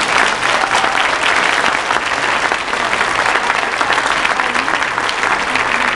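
A large audience applauding, many hands clapping at once in a steady, dense patter.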